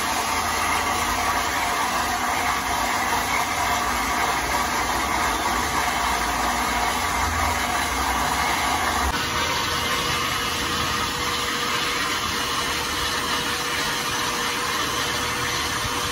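Sujata mixer-grinder motor running steadily, blending a jar of mango milkshake. About nine seconds in, the sound changes: the higher part of the whirr drops away and a steadier hum is left.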